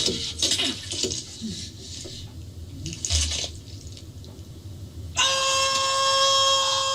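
A loud, long scream held on one high pitch begins about five seconds in, after several seconds of quieter indistinct noise.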